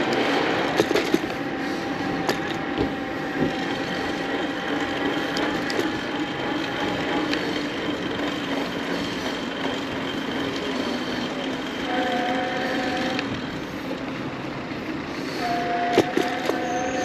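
Electric bicycle under way: the Byqee V21 conversion kit's motor gives a steady whine that shifts in pitch a couple of times, over a hiss of wind and tyre noise, with a few sharp clicks and rattles from the bike.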